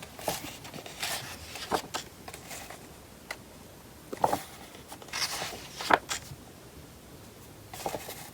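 Paper pages of an owner's manual being handled and turned: scattered soft rustles and crisp page flicks, the sharpest about four and six seconds in.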